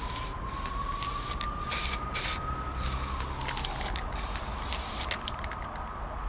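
Bursts of hissing noise that cut in and out, over a thin tone that rises slowly for about three seconds and then slides back down, with scattered short clicks in the second half.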